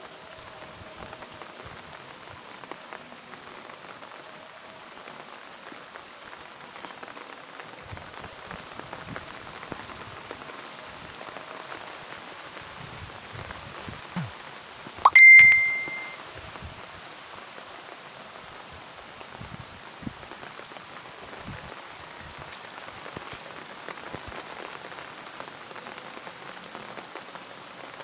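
Steady rain falling on paving stones and garden plants, an even hiss. About halfway through, a short tap and then a single sharp ding that rings for about a second, the loudest sound.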